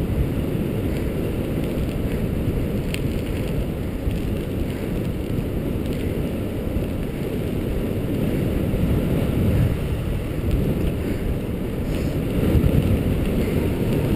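Steady rumble of a dog scooter's tyres rolling fast over a dirt trail, mixed with wind buffeting the microphone.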